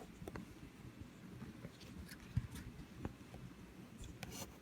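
Faint handling noises: a few light clicks and rustles, the sharpest about two and a half seconds in.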